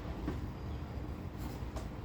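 Steady low background rumble, with a few faint crackles and taps as a taped plastic cookie packet is worked open by hand.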